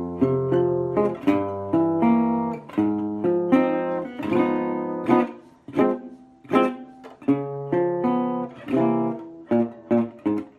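Music: a solo acoustic guitar picks an instrumental intro, in sharply plucked single notes and chords, with no singing.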